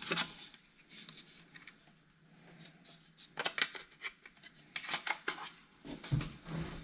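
Hands handling a plastic Hive smart thermostat: scattered light clicks and rubbing as it is turned over.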